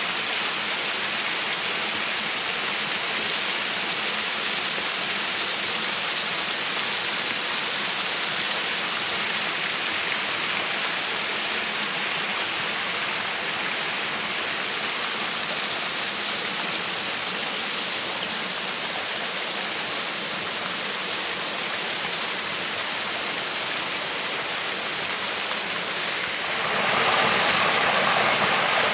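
Water running over a partly ice-covered waterfall: a steady rush of falling water that grows louder about 26 seconds in.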